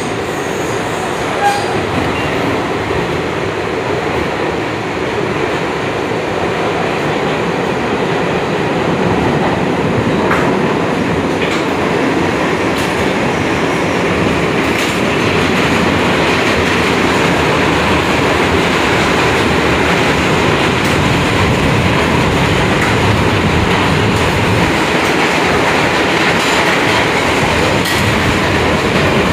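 Ride noise inside a moving R62A subway car: a steady rumble of steel wheels on the rails, growing a little louder after about eight seconds, with a few faint clicks.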